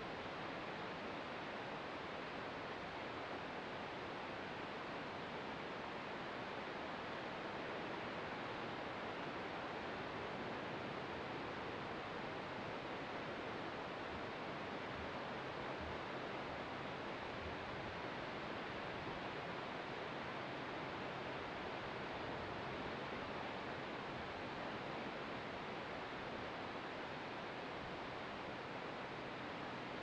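Ocean surf heard from a clifftop overlook: a steady, even wash with no separate wave crashes standing out.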